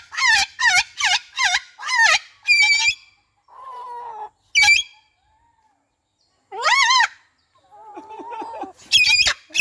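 Cockatoo with an orange crest calling: a rapid run of loud, harsh squawks, then single squawks with short pauses between them and some quieter chattering before another burst of squawks near the end.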